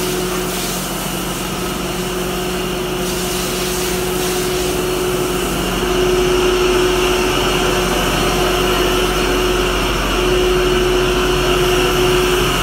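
Steady hum of cider mill machinery running, with a tone that drops out and comes back every few seconds; the hum grows a little louder about halfway through.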